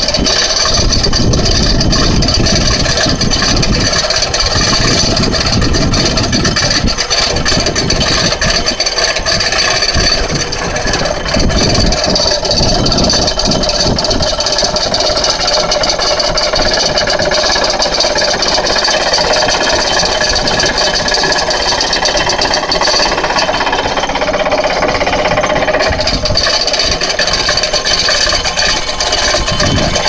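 Excavator-mounted hydraulic vibratory pile driver running steadily, vibrating a concrete pile down into the ground, with the excavator's engine under load beneath it. The rattling mechanical noise is loud and continuous.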